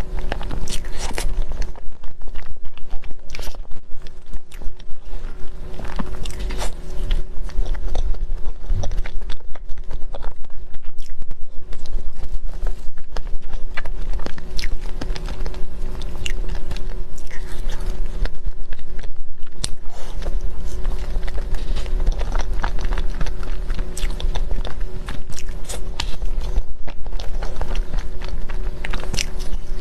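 Close-miked biting and chewing of soft layered crepe cake: irregular mouth clicks and chewing all through, over a steady low hum.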